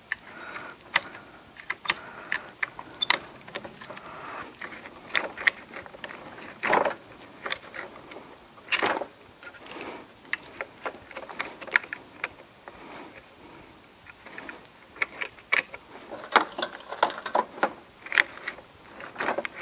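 A steel pick clicking and scraping in the throttle control lever mechanism of a Toro TimeCutter zero-turn mower, digging out a small stone that jams the lever. The clicks come irregularly, several sharp ones close together in places.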